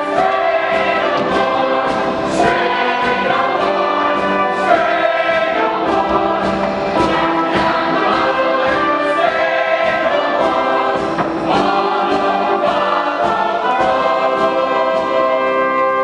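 A stage chorus of voices singing a hymn together, with orchestral accompaniment, in held, sustained notes.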